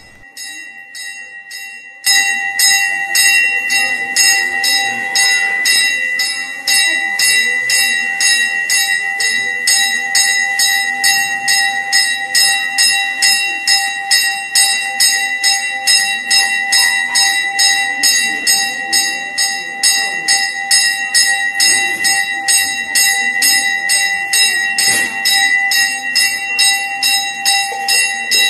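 Brass temple bell rung rapidly and without pause, about three strokes a second, its ringing tones held steady between strokes. It starts about two seconds in, after a quieter moment.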